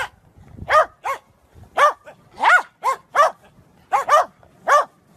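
Corgi barking: about ten short, high barks in an uneven run, some coming in quick pairs.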